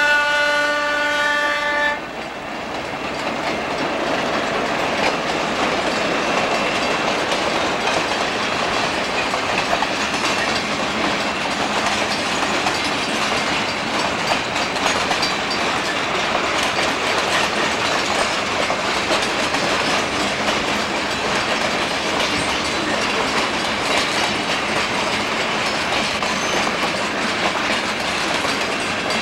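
Trona Railway Baldwin diesel locomotive's horn sounding one steady note, cutting off about two seconds in, followed by the steady running noise of the passing freight train of covered hoppers on the rails.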